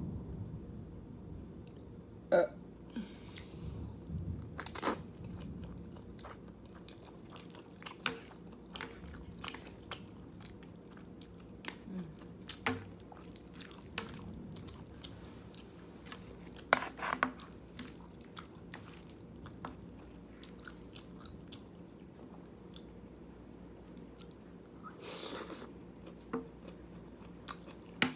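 Close-miked mouth sounds of a person eating jjajangmyeon noodles: wet chewing with many scattered sharp clicks and a few louder bites.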